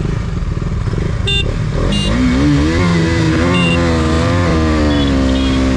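Single-cylinder 250 cc motorcycles (KTM Duke 250 and Yamaha FZ25) accelerating hard from a standing drag-race launch, the engine note climbing and wavering from about two seconds in.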